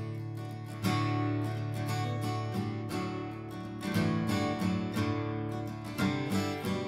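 Background music of strummed acoustic guitar, chords struck about once a second.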